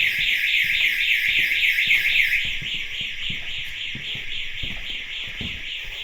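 Building intruder alarm sounding a fast, repeating electronic warble, set off by the motion sensors. It drops in level about two and a half seconds in.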